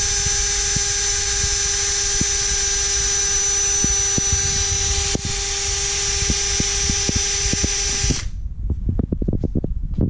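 Milwaukee cordless drill running at steady high speed, its bit boring into the rubber tread of a car tire; the motor whine cuts off suddenly about eight seconds in, and a few knocks and clatters follow.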